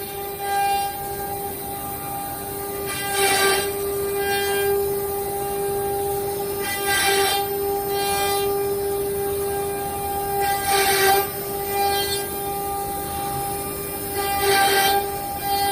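4-axis CNC wood router running, its spindle whining at a steady pitch, with a louder noisy swell of cutting about every four seconds.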